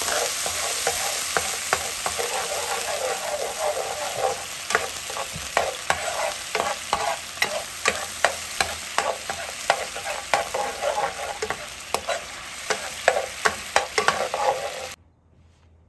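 Chopped garlic and chili flakes sizzling and bubbling in sauce in a frying pan, with a spatula stirring, scraping and clicking against the pan many times. The sound stops abruptly near the end.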